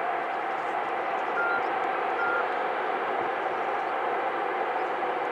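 Freight wagons rolling past on the track: a steady rushing rumble of wheels on rail, with two brief high squeaks in the first half.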